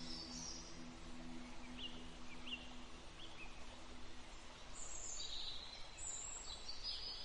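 Faint birds chirping over a steady hiss: a few short rising chirps about two seconds in, then higher, shorter calls in the second half. A low, steady ambient tone fades out in the first half.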